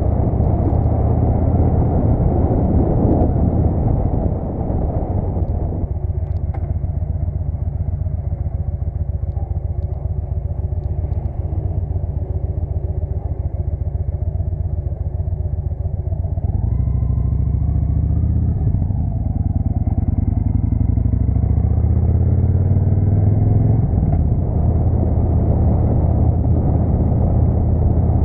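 Victory Hammer V-twin motorcycle engine running under way, heard from on the bike. The engine note eases off and drops about six seconds in, then climbs in pitch from about seventeen seconds in as the bike accelerates.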